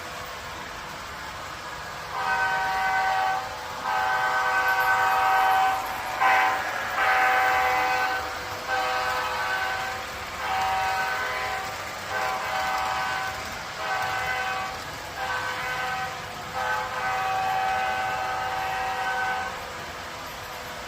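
Train horn sounding a long series of blasts, about ten in all, some long and some short, over a faint steady hiss.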